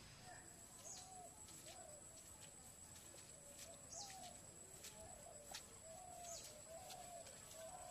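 Faint birdsong: one bird repeats short low notes over and over, while a high, falling call comes every two to three seconds.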